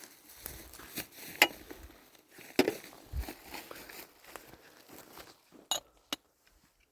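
Irregular knocks, clicks and rustling, with sharper knocks about one and a half and two and a half seconds in, a low thud just after, and two sharp clicks near the end.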